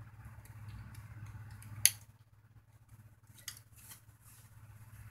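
Plastic wire-harness connectors being pushed into their sockets on a TV power-supply board: one sharp click about two seconds in and a smaller one about a second and a half later, with light ticks of handling over a low steady hum.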